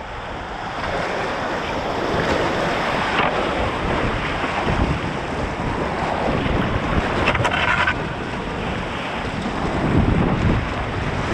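Whitewater rapids rushing, with wind buffeting the microphone.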